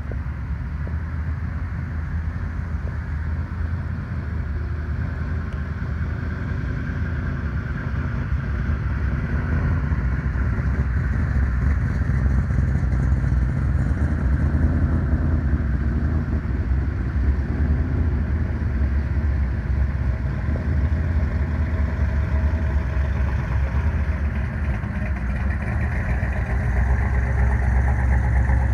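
Car engines running at low speed as a line of cars rolls past one after another: a steady low engine rumble that grows louder as each car draws near, most of all about halfway through and near the end.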